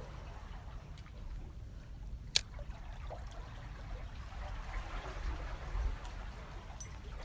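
Light trickling and lapping of water, with one sharp click about two and a half seconds in.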